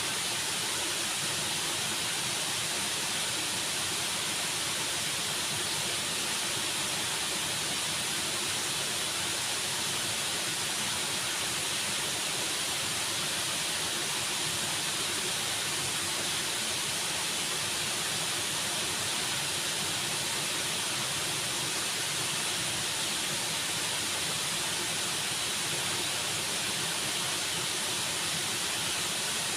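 Waterfall: a steady, unbroken rush of falling water with a bright hiss and no separate splashes.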